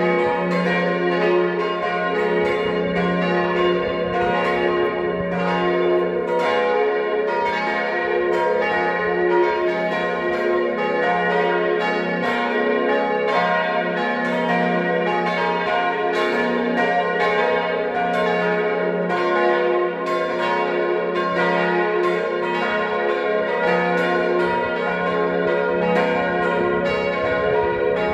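Church bells ringing together in a full, continuous peal, the strikes overlapping without a break; the tower's bells are tuned to C, B-flat, A-flat and F.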